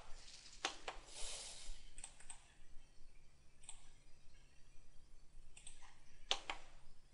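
Scattered clicks of a computer mouse and keyboard, some coming in quick pairs, with the sharpest pair about six seconds in.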